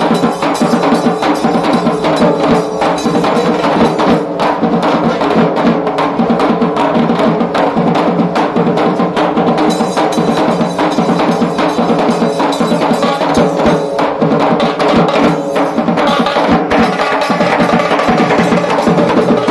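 Dhol tasha band drumming: barrel dhols and stick-beaten tashas playing a fast, dense, unbroken rhythm of sharp strokes.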